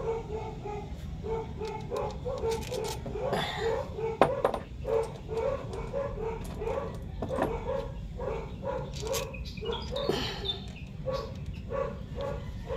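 A dog barking over and over, short barks at about two a second, with a few sharp clicks and knocks in between.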